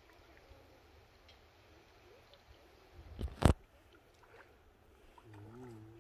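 Faint steady rush of shallow river water, broken a little past halfway by one sudden loud knock. Near the end comes a short, low, wavering hum from a person's voice.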